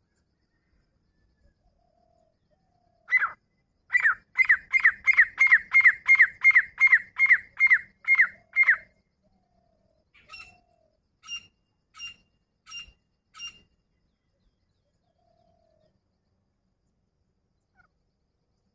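Grey francolin calling: a single note, then a fast run of about a dozen loud, sharp notes that each fall in pitch. After a short pause come five fainter, higher notes.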